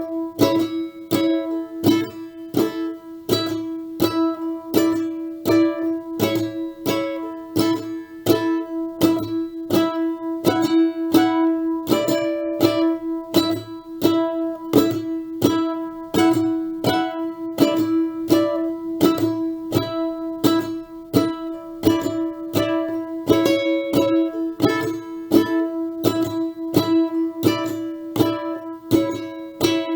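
Background music: a plucked string instrument, ukulele- or guitar-like, picking notes at a steady pace of about two a second.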